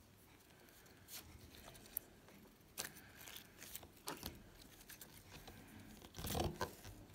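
Green slime being pressed and squeezed by fingers: a scatter of short, soft clicks and crackles, with the loudest and longest about six seconds in.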